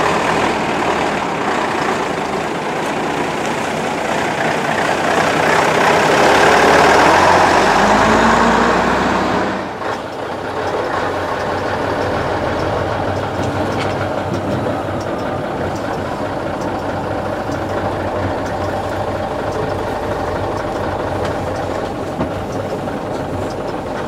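Scania-Vabis LS 76 truck's 11-litre turbo diesel engine running, growing louder with a brief rise in pitch, then heard from inside the cab as a steadier diesel drone after a sudden change about ten seconds in.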